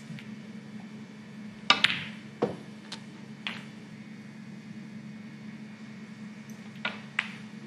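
Snooker balls clicking: the cue tip striking the cue ball and the balls knocking together. The loudest cluster of sharp clicks comes about two seconds in, and two more come near the end, over a steady low background hum.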